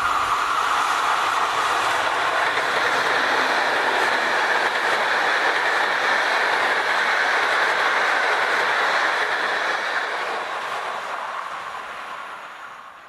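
An electric-locomotive-hauled passenger train of PKP Intercity coaches passing at speed: a steady rush and rumble of wheels on the rails with some clickety-clack. It fades away over the last three seconds.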